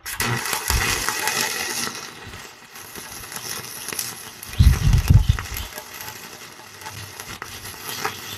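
Stick-welding arc from a 1/8-inch 6013 electrode (the black-dot brand) burning on thick steel, a steady crackling sizzle, at high amperage. A low thump about five seconds in.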